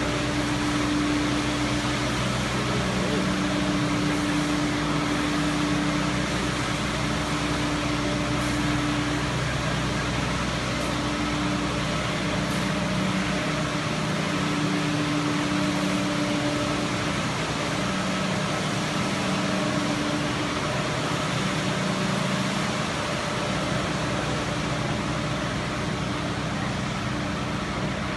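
Wood pellet production line machinery running steadily under continuous feeding: a dense, even industrial din with a low hum that swells and fades every few seconds.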